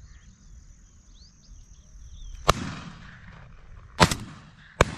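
Three shotgun shots in quick succession: one about halfway through, rumbling away afterward, then two more close together near the end.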